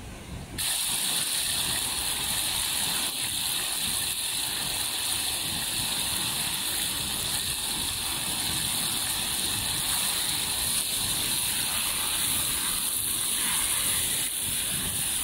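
Chunks of meat sizzling in hot fat in a cast-iron kazan over a wood fire: a steady, even hiss, strongest in the high pitches.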